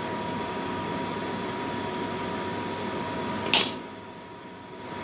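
Steady hum of a fan or appliance with a faint constant high tone. About three and a half seconds in there is a sharp click, and the hum drops away for about a second before it returns.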